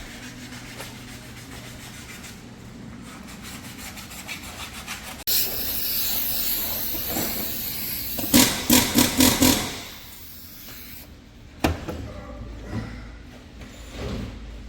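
A steady hiss starting about five seconds in and lasting about four and a half seconds, with a rapid run of sharp knocks near its end, then a single knock a couple of seconds later.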